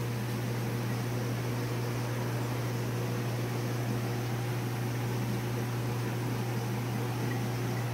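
Steady electrical hum with an even hiss from the reef aquarium's running equipment, its pumps and circulation.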